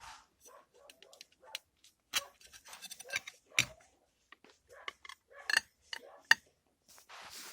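Irregular metallic clicks and clinks of steering wheel adapter parts and bolts being handled and fitted by hand, with a few sharper knocks.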